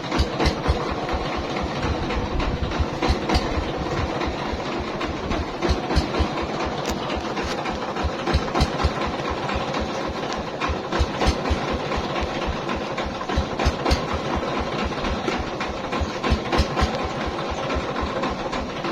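Mobile rice milling machine running steadily: a motor thudding rapidly at low pitch, with scattered sharp rattling clicks from the mill.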